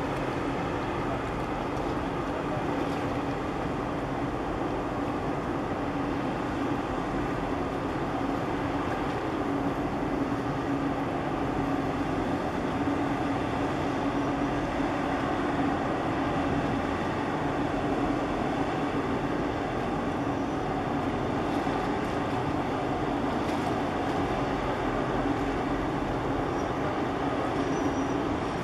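A boat engine running steadily: an even drone with a low hum that does not change.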